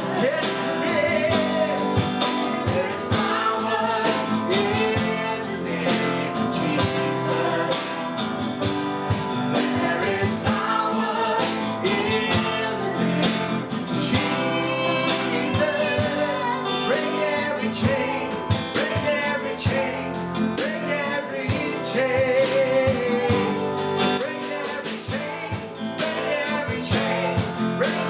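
Contemporary worship song: a voice singing over strummed acoustic guitar and band accompaniment.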